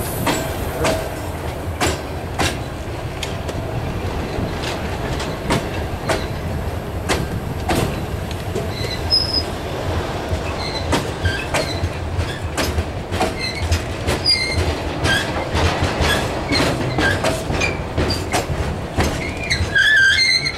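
Freight train of covered hopper cars rolling past close by: a steady rumble of steel wheels on rail, with repeated sharp clacks as the wheels cross rail joints. Short high-pitched wheel squeals come more often in the second half.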